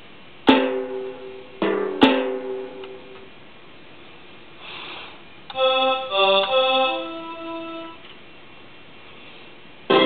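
Short phrases of electronic instrument notes from a MIDI Plus mini Engine General MIDI sound module, played from a mini keyboard through powered computer speakers, the instrument sound changing between phrases. A few notes with sharp attacks come near the start, a quick run of held notes comes a little past halfway, and one more sharp note sounds at the very end.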